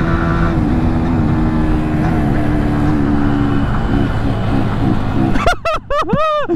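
Kawasaki GTO 125 two-stroke motorcycle engine running at speed, around 90 km/h, with a steady engine note that shifts slightly in pitch and a rush of wind noise. About five and a half seconds in it cuts off abruptly to a different sound of rising and falling pitched calls.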